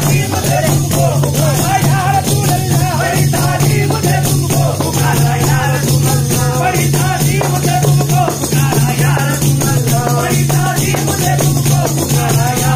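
Devotional naat music: voices singing a wavering melody over a steady low drone, with a fast, shaker-like rattling rhythm.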